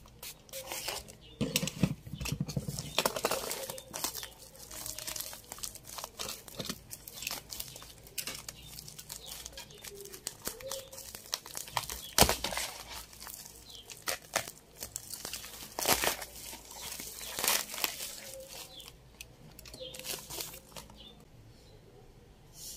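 Plastic courier mailer crinkling and rustling as hands tear it open and pull out its contents, in irregular crackles with a few loud sharp ones about twelve and sixteen seconds in.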